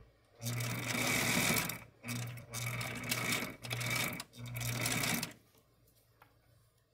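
Electric domestic sewing machine stitching a seam through thick fleece, run in about five stop-start bursts of varying length with brief pauses between, then stopping.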